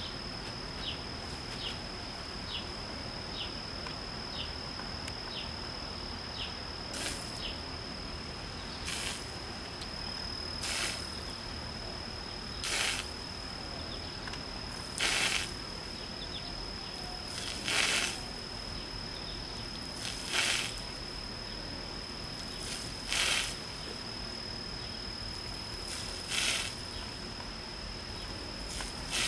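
Black rhinoceros spray-marking its territory: short hissing squirts of urine, about ten of them, one every two to three seconds from about seven seconds in, strong enough to sound like a hose.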